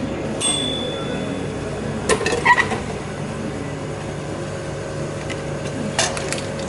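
Noodle vending machine's delivery hatch: a short beep, then metallic clunks and clinks, and near the end the clicks of the hatch flap being lifted, over a steady hum.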